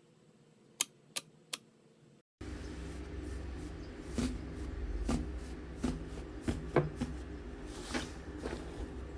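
Slime being handled: three sharp clicks, then after an abrupt cut a steady low background hum with scattered soft pops and clicks from the slime.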